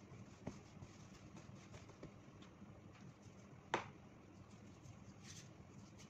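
Hands kneading and patting a soft bread dough on a floured countertop: faint handling sounds with one sharper tap a little before four seconds in, over a low steady hum.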